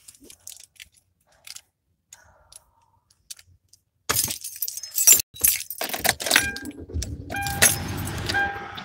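Car keys jangling, with a run of sharp clicks and knocks about four seconds in as a driver settles into a car. From about six seconds a low, steady car engine runs, with a short tone repeating every second or so.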